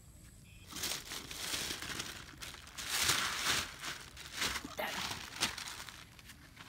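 Thin plastic bag crinkling as it is handled and held open, starting under a second in, loudest about three seconds in, then thinning to scattered crackles.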